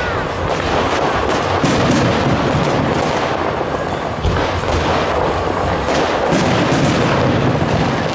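Aerial fireworks launching and bursting overhead: a rapid run of bangs and crackles over a dense wash of noise, with a deeper thump about four seconds in.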